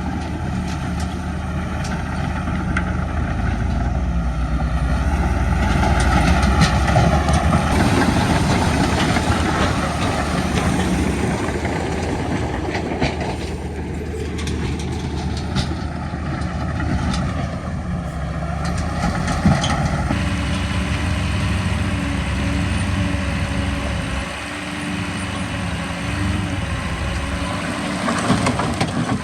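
Heavy diesel earthmoving machinery running, the bulldozer and dump truck engines working at a site, with the engine note shifting several times as the load changes.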